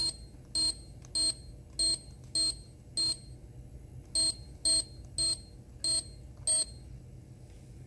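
Electronic beeping from store checkout equipment at the register: eleven short, identical beeps a little under two a second, with a pause of about a second after the sixth.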